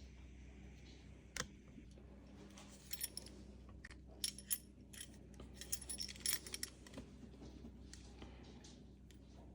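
Light clicks and metallic clinks of a car key fob and its key being handled, with a busier run of clinks in the middle.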